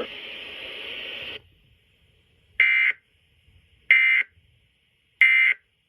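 Three short, identical buzzy data bursts about 1.3 seconds apart from a weather radio receiver: the Emergency Alert System end-of-message tones that close a NOAA Weather Radio severe thunderstorm warning. Before them, radio hiss drops sharply about a second and a half in.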